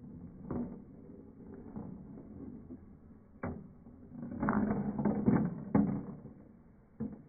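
Steel balls rolling and clicking around a plastic marble-run bowl and chute, heard slowed down and deep: a low rolling rumble with a few separate knocks, loudest for a second or so past the middle.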